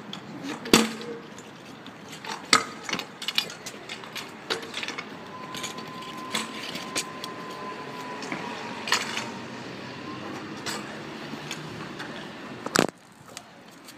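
Kick scooter tricks on concrete: a run of clattering metal knocks and clicks as the scooter's deck and wheels hit the ground, with a sharp loud knock about a second in and another near the end.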